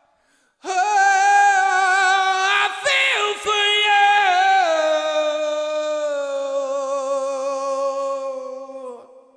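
A man singing unaccompanied: one long wordless held note with wide vibrato, which steps down in pitch about four seconds in, slides lower and fades out near the end.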